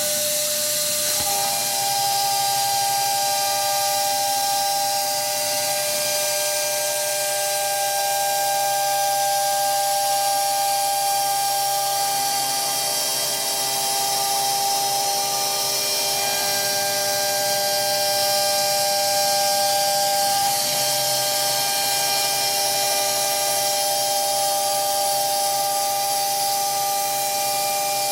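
CNC router spindle running at a steady high-pitched whine while its bit cuts wood, over a constant hiss of cutting. An extra higher tone comes in for a few seconds midway.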